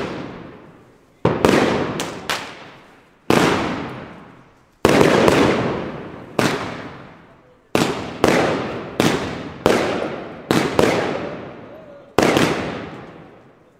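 Fireworks battery firing shot after shot in the sky: about a dozen sharp bangs at uneven spacing, some coming two or three close together, each trailing off in a long echoing decay.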